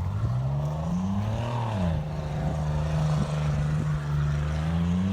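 Chevy Blazer engine being driven under throttle. It revs up over the first second and a half, drops back near two seconds, then holds steady revs before picking up slightly near the end.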